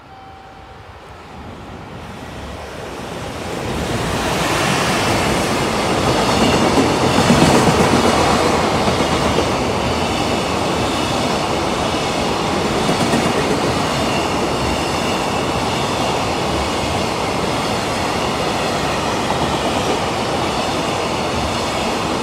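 JR Freight EF210 electric locomotive and its long container freight train passing through a station without stopping. The rumble grows over the first few seconds as the locomotive approaches and is loudest as it goes by about seven seconds in. The container wagons' wheels then run past on the rails at a steady level.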